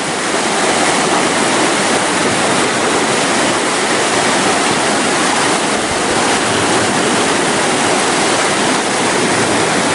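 Fast, churning whitewater rushing along a stone-lined channel bank: a steady, loud rushing of turbulent water.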